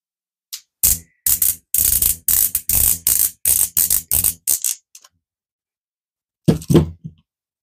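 A Sharpie marker's plastic barrel being gripped and pulled apart with pliers: a quick run of about a dozen short scraping, crinkling noises, about three a second, with a shorter, deeper sound near the end.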